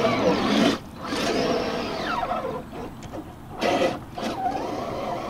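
Redcat Gen8 Scout II RC crawler's electric motor and geared drivetrain whining under throttle, the pitch rising and falling. Its wheels churn water and mud as the nearly submerged truck digs in without getting out.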